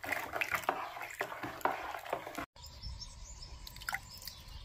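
Lime whitewash stirred by hand in a metal bucket: irregular wet sloshing and splashing. About halfway in it cuts off abruptly, giving way to outdoor background noise with a low rumble and faint high chirps.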